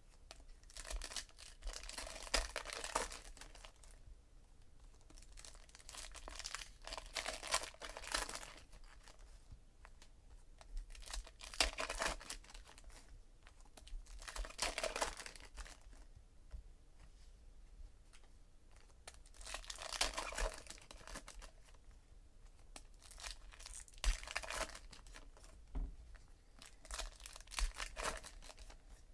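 Foil wrappers of 2017 Donruss Optic baseball card packs being torn open and crinkled by hand, in bursts every few seconds with quieter handling between.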